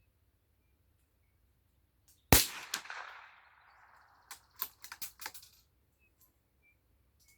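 A single shot from a CZ 455 Evolution bolt-action rimfire rifle, with a fading echo after it. About two seconds later comes a quick run of sharp metallic clicks, the bolt being worked to eject the case and chamber the next round.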